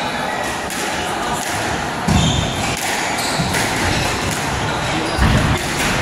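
Squash rally: the ball is struck by racquets and hits the court walls with sharp smacks, and heavy low thuds come about two, three and a half and five seconds in. Shoes squeak briefly on the wooden floor.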